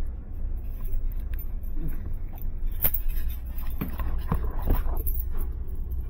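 Footsteps and handling noise while walking with a handheld camera: a few sharp knocks and clicks, most of them bunched together after the middle, over a steady low rumble.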